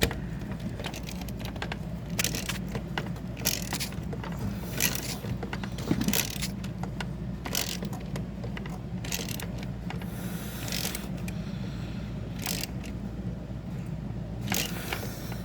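Ratchet with a long extension and Torx socket driving a screw home: repeated short metallic clicks and scrapes, about one every second, over a steady low hum.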